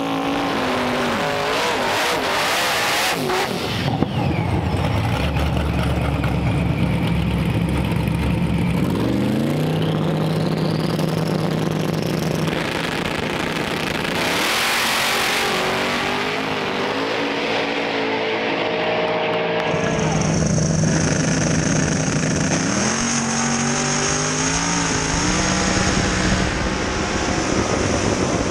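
Drag racing cars' engines held at steady revs on the starting line, then accelerating hard with rising pitch, several times over.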